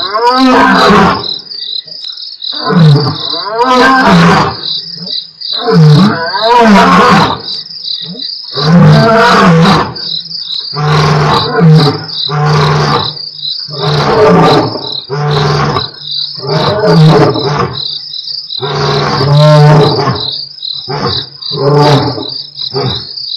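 Male lions roaring in a full bout: a few long, deep roars first, then a run of shorter grunting roars about every second that grow shorter toward the end. Crickets chirp steadily throughout.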